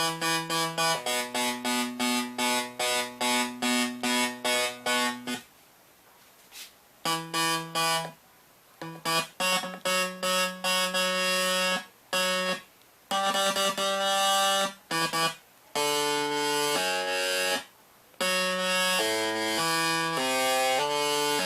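Electronic sound-effects synthesizer producing pitched electronic tones. First comes a fast run of repeated beeps. After a couple of short pauses it moves on to longer held tones that step up and down in pitch.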